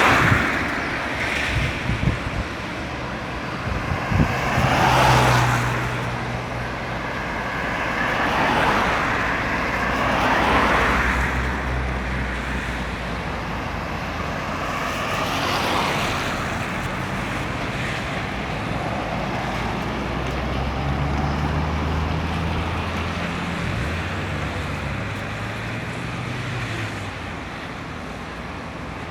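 Road traffic: cars passing one after another, their tyre noise swelling and fading every few seconds. A low engine drone runs underneath twice, a few seconds in and again in the second half.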